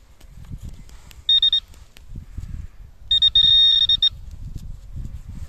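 Handheld metal-detecting pinpointer giving a short high beep about a second in, then a rapidly pulsing beep for about a second, signalling a metal target close by in the loose soil. Soft crunching of earth being turned over by a gloved hand runs underneath.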